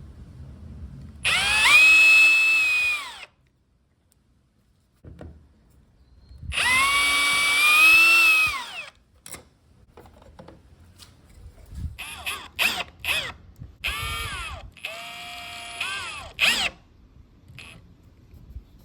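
Cordless power screwdriver driving or backing out the switch plate screws: two motor runs of about two seconds each, each spinning up, holding and winding down, then several short bursts of the motor near the end.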